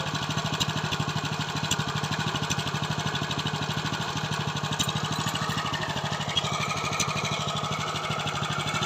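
KB-365 mini tiller's small engine running steadily, with an even, rapid firing beat.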